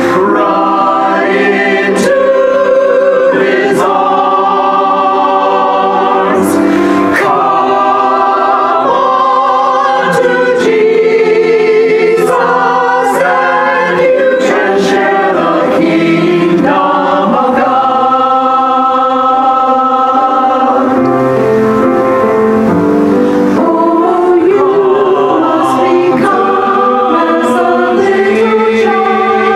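Mixed church choir of men's and women's voices singing together.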